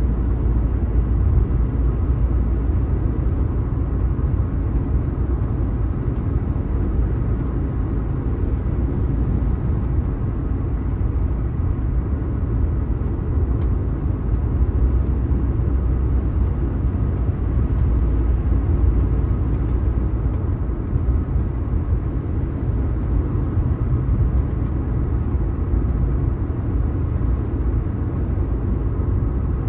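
Car driving along a road, heard from inside the cabin: a steady low rumble of road and tyre noise.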